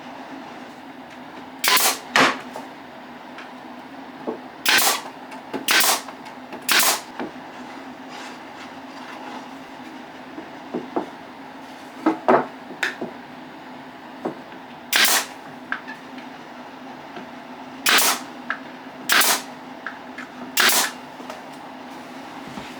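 Pin nailer driving pins into glued rebated joints: about ten sharp shots, one at a time, a second or few apart.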